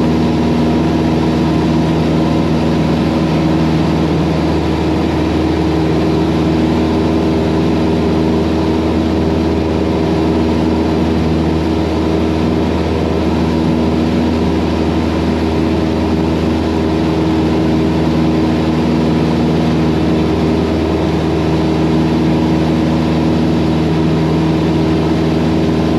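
Cessna 172's piston engine and propeller droning steadily in flight, heard inside the cockpit through the pilot's headset and intercom.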